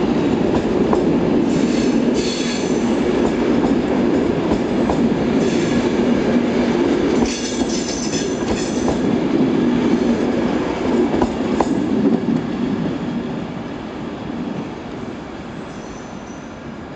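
Train of stainless-steel Corail coaches rolling slowly past, hauled by a CP 1400-class diesel locomotive: a steady heavy rail rumble with wheel clacks and short bursts of wheel squeal, at about 2, 5 and 8 seconds in and again near the end. It fades over the last few seconds as the train draws away.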